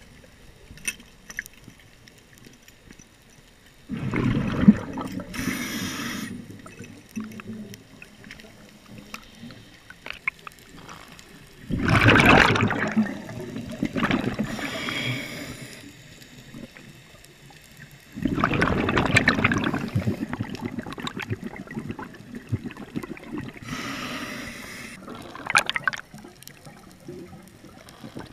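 A scuba diver breathing through a regulator underwater, heard through the GoPro's housing. Exhaled bubbles gurgle out in several bursts of two to three seconds each, spaced several seconds apart, with faint clicks and hiss between breaths.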